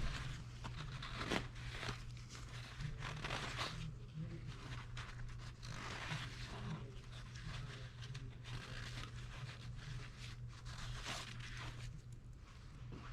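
Irregular rustling, scraping and handling noises over a steady low hum, with a sharp click near the start.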